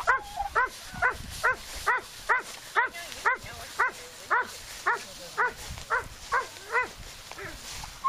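A dog barking over and over in short, high-pitched yips, about two a second, each bark rising and falling in pitch.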